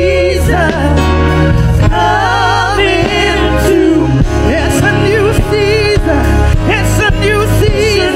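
Live gospel worship music: several women singing with vibrato over keyboard accompaniment with a heavy bass.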